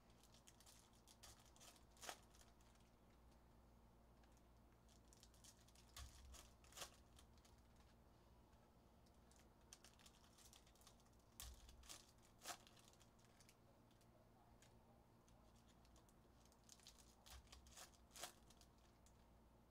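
Faint handling of foil trading-card packs and cards: a few soft tearing, crinkling and clicking sounds several seconds apart over quiet room tone.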